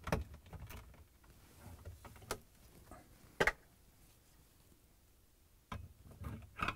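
Flathead screwdriver prying plastic screw caps out of a refrigerator's plastic interior liner: scattered light clicks, a sharper snap about three and a half seconds in, and more clicking near the end.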